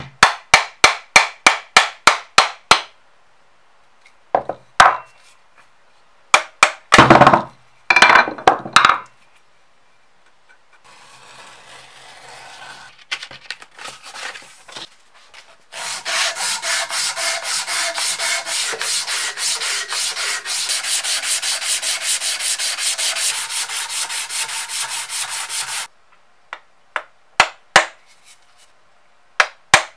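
Sandpaper rubbing against wood in steady, quick back-and-forth strokes for about ten seconds in the middle. Before and after it come runs of rapid, sharp knocks of the hammer on the wooden workbench.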